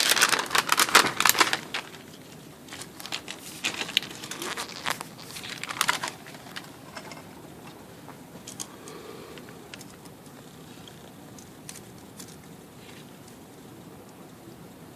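Small plastic parts packaging crinkling, with light clicks and ticks as electronic components are handled. It is busiest in the first two seconds, then thins out to scattered ticks after about six seconds.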